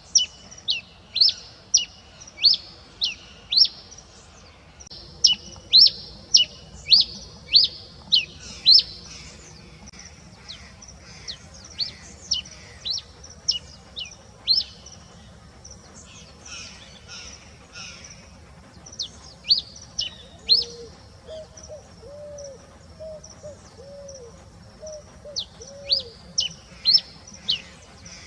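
Red pileated finch (tico-tico-rei) singing its dawn song: sharp, high notes each slurring steeply downward, given about two a second in bouts separated by short pauses. About two-thirds of the way through, a series of six or seven low hoots sounds in the background.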